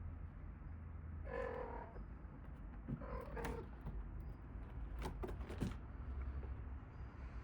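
Calico-mix cat sneezing in a run: a brief pitched sound about a second and a half in, another sneeze-like sound about three and a half seconds in, and a quick cluster of sharp sneezes about five seconds in.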